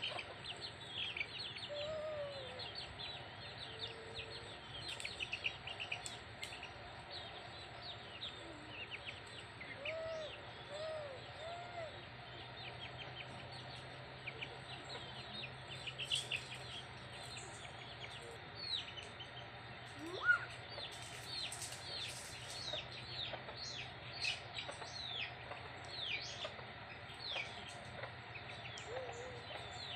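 Chicks peeping in many short, high, falling chirps, with a hen clucking low a few times in between.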